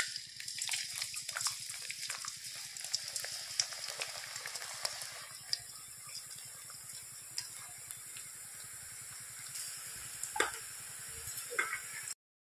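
Gram-flour batter dripping through a perforated ladle into hot oil, frying into boondi with a steady sizzle and crackle. A couple of sharp taps come near the end, and the sound cuts off suddenly just before the end.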